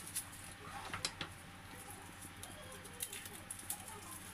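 Scattered light clicks and papery crackles of garlic cloves being peeled by hand.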